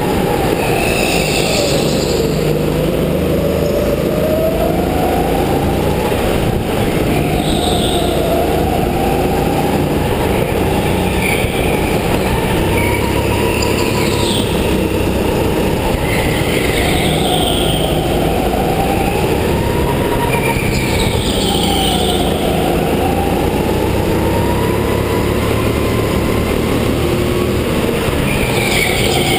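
Go-kart driven hard around an indoor track, its motor whine rising and falling in pitch as it speeds up and slows for the corners, with short tyre squeals every couple of seconds.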